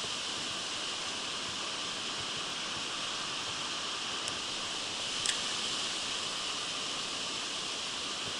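Mountain stream water rushing steadily, with two brief ticks about four and five seconds in.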